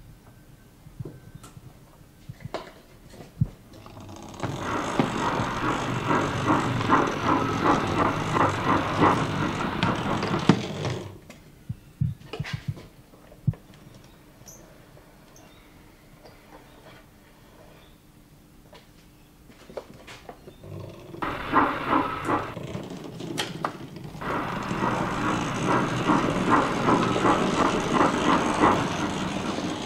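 An O gauge model crane tank locomotive's DC motor and gearing running with a rattly whirr as it moves along the track, twice: from about four seconds in to about eleven, and again from about twenty-one seconds on. In between is a quieter stretch with scattered light clicks.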